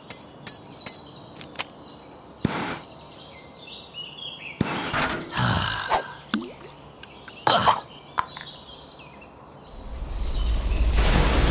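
Cartoon sound effects over faint birdsong: a run of sharp clicks, then a few short rushing sounds, then a long, loud, low rumble near the end.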